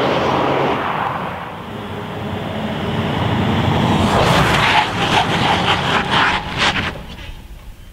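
2014 Toyota Kluger SUV with a 3.5-litre V6 driving toward the roadside, its engine and tyre noise growing louder from about two seconds in, then fading near the end.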